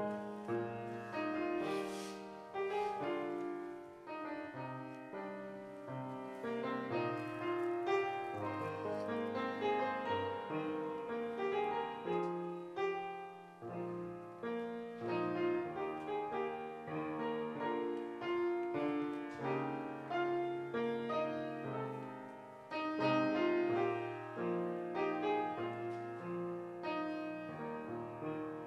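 Piano music: a continuous run of held notes and chords.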